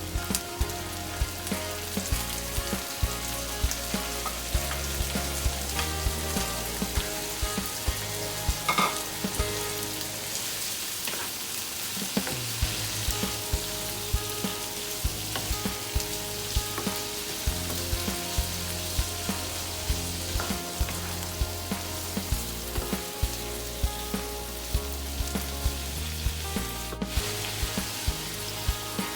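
Mixed seafood sizzling as it is stir-fried in sesame oil with garlic and onion, a steady hiss broken by frequent sharp clicks of the spatula against the pan.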